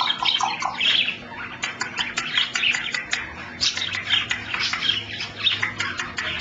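African grey parrot chirping and whistling in a rapid, continuous string of short high chirps.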